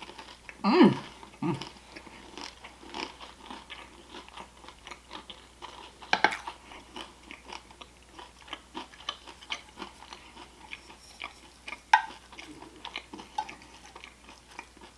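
Close-up chewing and biting of a crunchy wonton stuffed with crab meat and cream cheese: irregular crisp crunches and wet mouth clicks, with louder bites about a second in, around six seconds and around twelve seconds. A short hum sounds about a second in.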